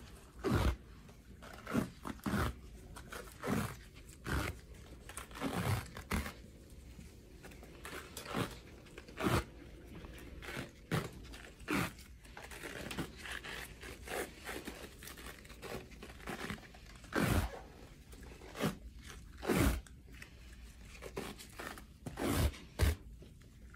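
Elastic compression bandage being unrolled, pulled taut and wound around a leg, giving short crackling sounds at irregular intervals.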